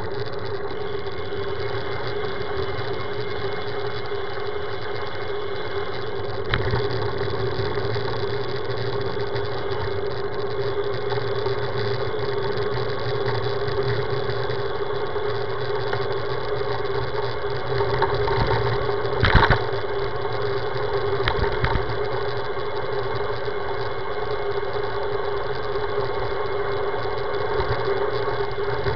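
Steady hum and road noise picked up by a camera mounted on a road bike rolling along a street. A few sharp knocks stand out, the loudest about two-thirds of the way through.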